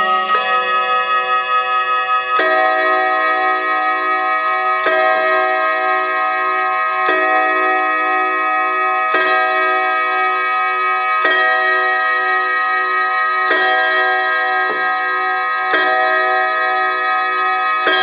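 A 1950 German chiming clock striking on its gong rods. The last notes of the chime tune ring out, then come slow single strokes about every two seconds, about eight in all, each ringing on under the next, with the pendulum movement ticking beneath.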